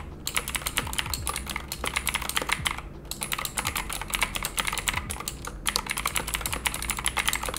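Fast typing on a Cooler Master CK720 mechanical keyboard fitted with clicky Kailh Box V2 White switches, a dense run of keystroke clicks broken by a few short pauses.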